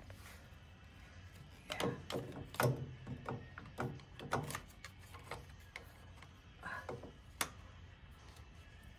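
Hand tools clicking and knocking against metal motorcycle parts as a wrench works the fasteners of an oil cooler fan bracket: irregular clicks and taps, clustered about two seconds in and again near the end.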